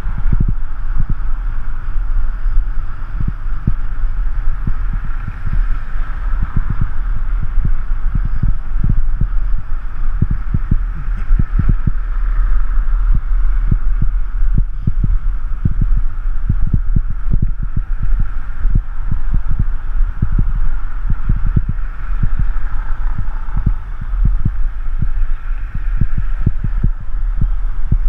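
Wind buffeting the microphone of a camera on a moving bicycle, a loud low rumble with irregular thumps, over steady road noise.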